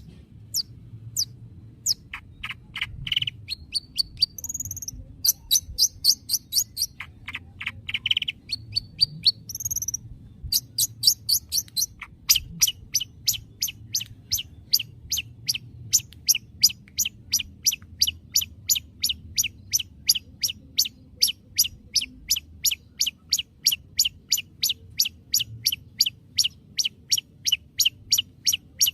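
Long-tailed shrike (cendet) calling: a varied run of sharp falling chirps and high whistles, which about twelve seconds in settles into fast, evenly repeated short chips, about three a second.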